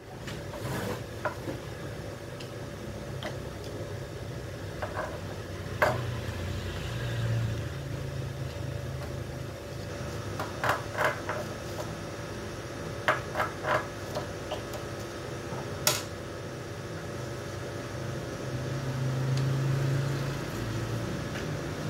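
Scattered small metal clicks and taps as the end bracket and screws of a Ricoh copier's fuser oil-web unit are handled and unscrewed, some coming in quick groups of two or three. A steady low rumble runs underneath.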